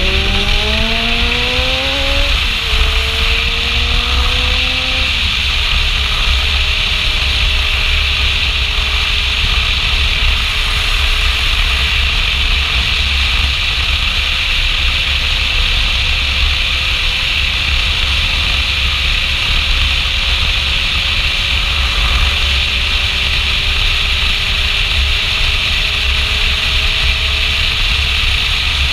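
Kawasaki Zephyr 750's air-cooled inline-four engine accelerating through the gears, rising in pitch with two upshifts in the first five seconds, then holding a steady, slowly climbing note at cruising speed. Heavy wind rush on the microphone runs under it.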